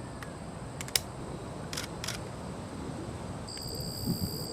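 Camera shutter clicks from a single-lens reflex camera: a handful of sharp separate clicks in the first two seconds, the loudest about a second in. A steady high-pitched tone starts near the end.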